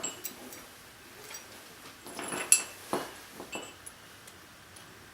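Scattered metallic clinks and taps from small metal parts and tools being handled, the sharpest about two and a half seconds in.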